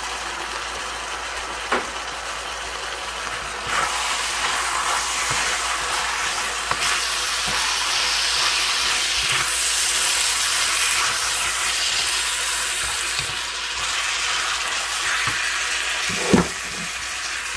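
Chicken pieces sizzling and frying in a hot wok as they are stirred with a wooden spatula, the sizzle growing louder about four seconds in. A few knocks of the spatula against the pan, the sharpest near the end.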